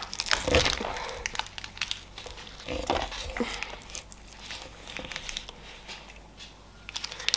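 Small candy wrappers crinkling and rustling as they are handled, a run of quick crackles, with a couple of soft knocks of things set down on the table.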